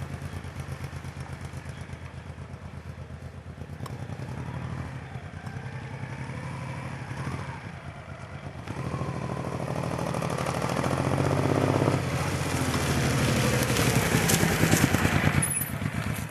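Honda Shadow VT1100C motorcycle's V-twin engine running, its pitch shifting and the sound getting louder from about halfway through.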